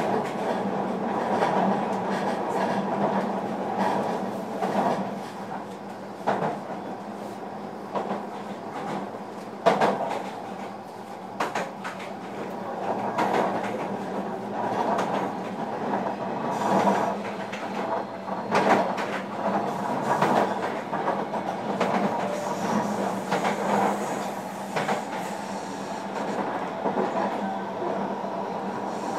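JR Kyushu 305-series electric train running, heard from inside the motor car: a steady rumble of wheels on rail with a steady hum, broken by irregular clacks over rail joints.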